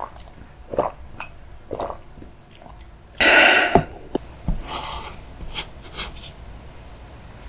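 A woman swallowing milk from a glass in a couple of soft gulps, then a loud breathy exhale lasting about half a second, a little over three seconds in. A sharp click and a few light taps follow.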